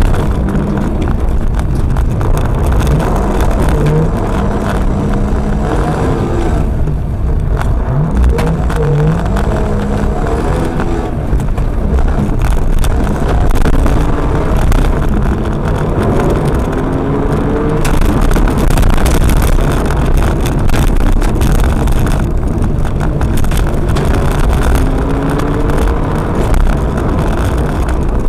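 Audi A4 Quattro's 2.8-litre 30-valve V6 driven hard, heard from inside the car: the engine note rises again and again under acceleration and drops back at each shift or lift. Gravel and tyre noise from the loose surface runs under it throughout.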